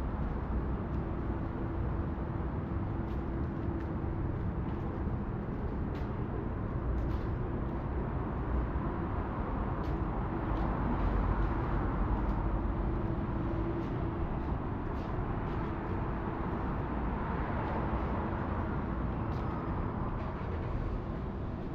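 City street traffic: cars and buses running and passing, with a steady low engine hum, growing louder around the middle and again a little later as vehicles go by.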